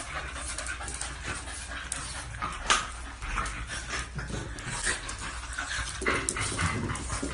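Two French bulldogs play-wrestling, with dog breathing and scuffling over a tile floor and scattered sharp clicks, the loudest about two and a half seconds in.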